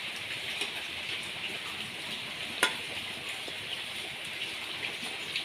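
Batter-coated eggplant slices deep-frying in hot oil in a steel kadai: a steady sizzle with small crackles as a slotted spoon moves through the pan and lifts them out. One sharp click about halfway through.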